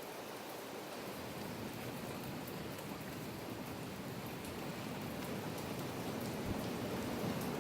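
Steady rain falling in gusty wind, with faint scattered drop ticks; the wind noise swells slightly toward the end.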